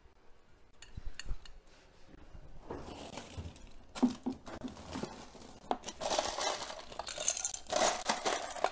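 Rummaging through a pull-out freezer drawer: scattered clinks and knocks as frozen items are moved about, with rustling of packages growing louder over the last few seconds.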